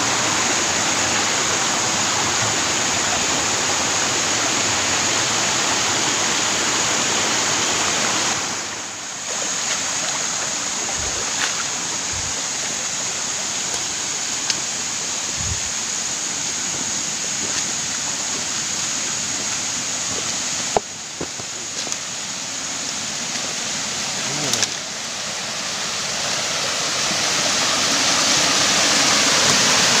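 Rushing water of a forest stream and small tiered waterfall spilling over rock ledges, a steady noise that grows louder near the end as the cascade comes closer.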